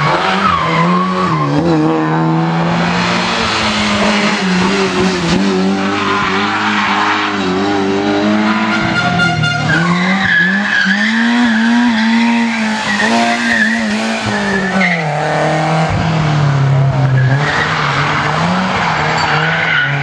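Rally car engines revving hard through tight bends, the pitch climbing and dropping again and again with gear changes and lifts off the throttle, with tyres squealing at times. More than one car passes in turn, the first a Lada 2107.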